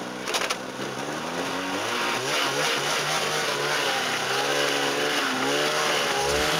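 Snowmobile engine running at low speed and being blipped, its pitch rising and falling in waves and growing gradually louder.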